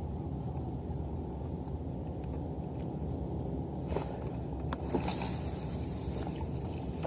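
Steady low rumble of wind on the microphone, with a few faint clicks and a short hiss about five seconds in.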